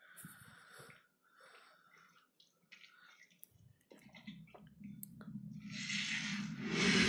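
Film sound effects of blood welling from a cracked wall: faint drips and breaths, then from about four seconds in a low rumble that builds into a loud rushing surge near the end, as the blood is about to gush out.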